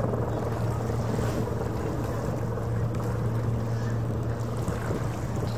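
Harbour ferry's engines running with a steady low hum, with wind noise on the microphone.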